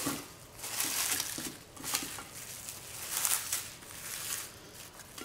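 Plastic cling film crinkling and rustling in irregular bursts as hands handle it.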